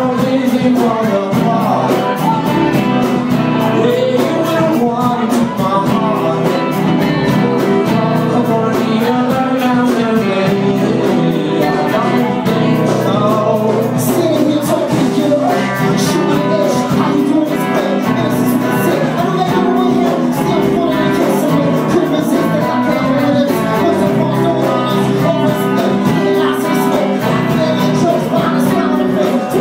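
Live band playing a song: a male lead vocal over acoustic guitar, electric guitar and bass, amplified through a club PA and recorded from the audience.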